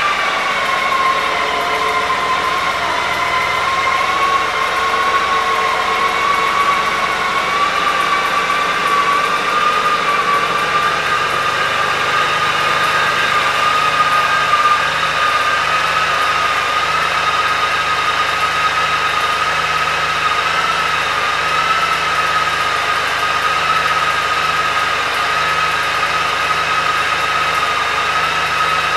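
2004 Honda Gold Wing's 1.8-litre flat-six engine idling steadily. A high whine sits over it; its pitch dips slightly in the first few seconds and then slowly creeps back up.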